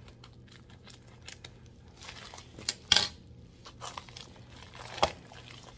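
Scissors snipping open a mailer bag, then the bag crinkling as it is handled, with a couple of sharp clicks, the loudest about three seconds in.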